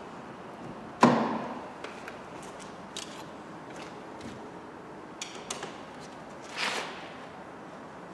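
Hand work on a car's front door while its handle and trim are being fitted: a sharp loud knock about a second in, a few light clicks, a short scraping rustle, and another loud knock right at the end.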